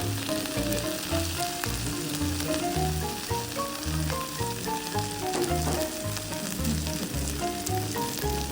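Ankake sauce bubbling and sizzling on a hot iron teppan plate of yakisoba, a steady crackling hiss, under background music with a melody over a regular bass note.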